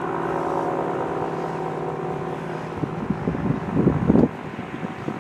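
ACA P-50 rotating outdoor warning siren sounding its steady alert tone during a test. Gusty wind noise on the microphone rumbles in about three seconds in, and after about four seconds the siren's tone is quieter.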